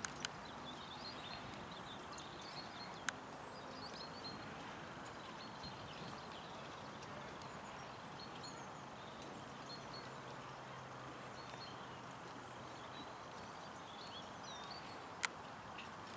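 Outdoor background hiss with small birds chirping on and off, a faint low hum in the middle, and two sharp clicks, one about three seconds in and one near the end.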